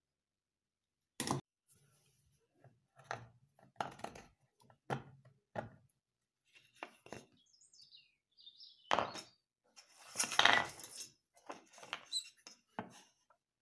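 Metal hand tools and a wooden block handled on a workbench: a string of irregular clicks, clinks and knocks, with a longer scraping, rustling stretch about ten seconds in.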